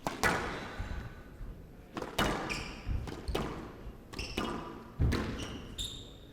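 Squash rally: a hard rubber squash ball being struck by rackets and hitting the court walls, a sharp crack roughly every second that echoes in the hall. Short high squeaks of court shoes are heard between some of the strokes.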